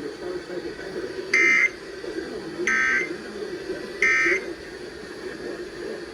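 Emergency Alert System SAME end-of-message data bursts: three short, shrill digital chirps about a second and a half apart, marking the end of the flash flood warning broadcast. They play over a steady low hum from the receiver.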